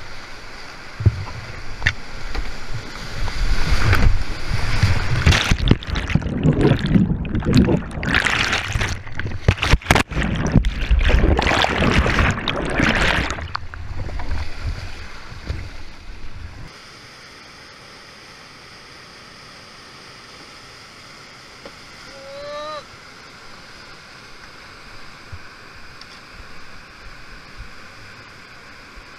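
Whitewater rushing and splashing right at a kayaker's camera as the boat runs a steep rapid: loud and chaotic, with repeated hits of water. About seventeen seconds in it cuts off abruptly to a faint, steady hiss, with a brief rising whistle-like call a few seconds later.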